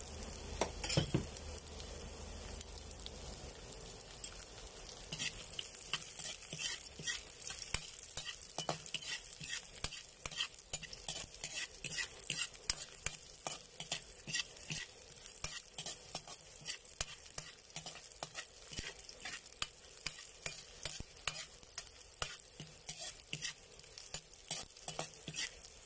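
Garlic and sliced red onion sizzling in a little oil in an aluminium wok, stirred with a metal spatula that scrapes and clinks against the pan. The quick stirring strokes start about five seconds in and continue over the steady sizzle.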